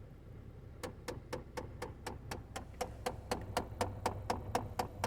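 Rapid, regular clicking from the Chevy HHR's heating and air-conditioning system in the dashboard, about four clicks a second, starting about a second in, over a steady low hum.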